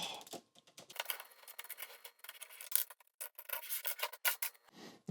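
LEGO plates being worked loose from the edge of a baseplate by hand: faint, irregular small plastic clicks with scraping and rubbing of plastic on plastic.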